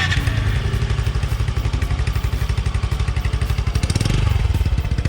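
Motorcycle engine idling through an Exos X6 aftermarket exhaust pipe, a steady, fast, even pulsing from the exhaust.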